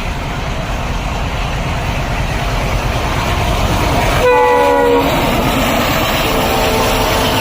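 Railway locomotive horn giving one short chord blast about four seconds in, sounded by the loco pilot as an acknowledgement, over the steady rumble of a moving train that slowly grows louder. A fainter held tone follows from about six seconds in.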